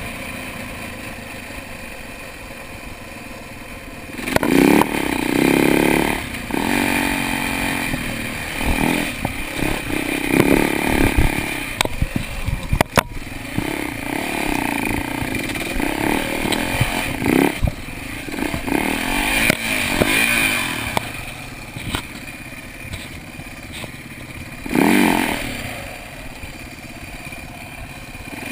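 Dirt bike engine running lower for the first few seconds, then rising and falling in repeated bursts of revs as the bike is ridden along a rough trail. There is clatter from the bike over the ground and a sharp knock about halfway through.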